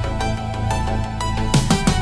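Electronic background music with a steady beat, with a low falling sweep near the end.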